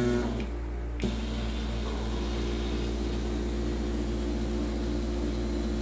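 Nordson Encore electrostatic powder-coating gun spraying: a steady hiss of air and powder starts about a second in, over a low steady hum.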